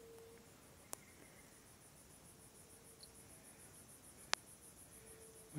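Faint high-pitched insect call pulsing evenly, about five or six pulses a second, with two sharp clicks, the louder one about four seconds in.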